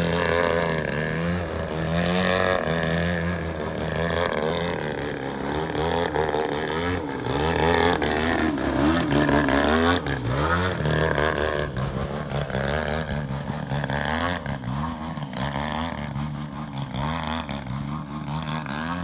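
Large-scale radio-controlled aerobatic plane's GP 123 engine and propeller, the revs rising and falling over and over as the plane hangs on its prop and manoeuvres; loudest about halfway through, then a little fainter as it moves away.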